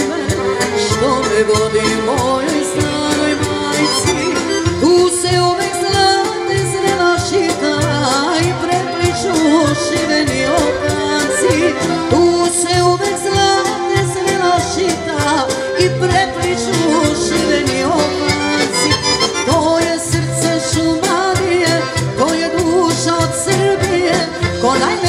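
Live Serbian folk music: accordions leading a band of guitars, bass guitar and keyboard in a lively song, with a woman singing.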